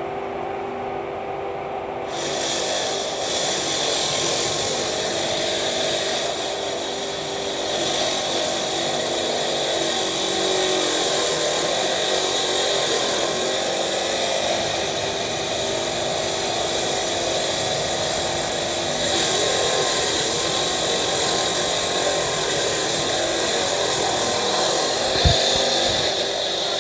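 Walk-behind concrete cutter with a 10 hp three-phase electric motor and a 14-inch blade. Its motor hums steadily, then about two seconds in the blade bites into the concrete and a loud, steady, hissing grind of dry cutting takes over. A single sharp knock comes near the end.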